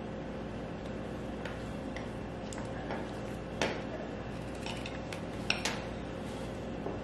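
QuickJack hydraulic hoses being handled and coiled, their metal threaded fittings giving a few light clinks, over a steady background hum.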